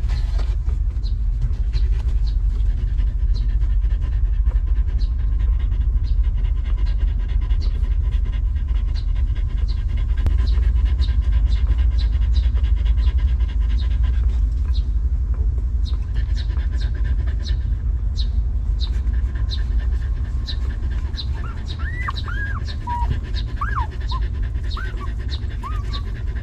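Mother dog panting steadily while nursing her newborn puppies, with a faint high tick about twice a second. Near the end come several short, high, rising-and-falling squeaks from the newborn puppies.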